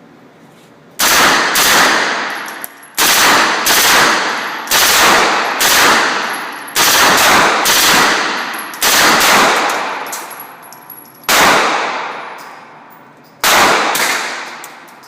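About a dozen single gunshots from an MP5 submachine gun fired semi-automatically, mostly in quick pairs less than a second apart. Each shot is followed by a long echoing decay.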